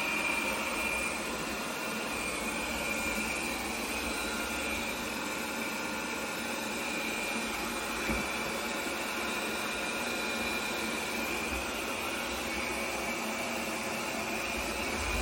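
iRobot Roomba Combo 2 Essential robot vacuum cleaning, its suction fan giving a steady whir with a high whine. A light knock comes about eight seconds in.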